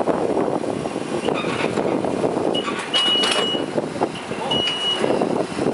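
Amphibious rigid inflatable boat running on its own land-drive wheels as it backs off its trailer, a steady mechanical engine noise, with a few short high beeps in the second half like a reversing alarm.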